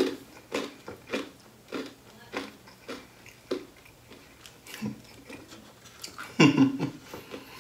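A person chewing food close to the microphone, with wet mouth smacks about every half second, and a brief voiced sound about six and a half seconds in.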